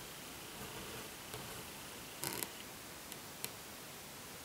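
Faint handling sounds of hand embroidery: needle and thread being worked through cloth, giving a few small ticks, the loudest a short cluster a little after two seconds in, over a steady low hiss.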